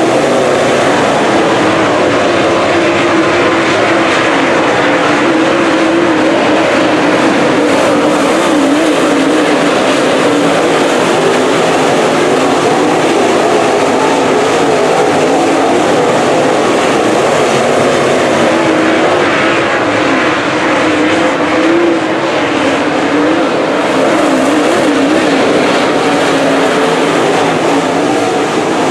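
Dirt late model's V8 engine running hard at racing speed, a loud steady drone whose pitch wavers slightly up and down.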